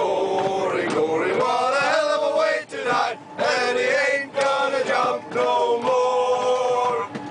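A group of men singing a song together in phrases, with long held notes.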